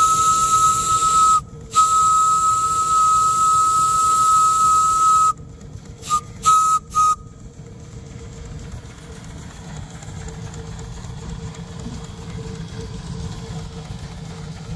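Steam whistle on a vertical steam boiler, blown by pulling its chain: one long blast at a single steady pitch with a hiss of steam, broken briefly about a second and a half in and stopping about five seconds in. Three short toots follow, then only a low steady background noise.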